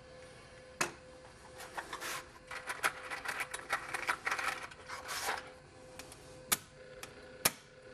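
Hands handling small items on a workbench: a few sharp clicks, with a stretch of rustling and scraping in the middle, over a faint steady hum.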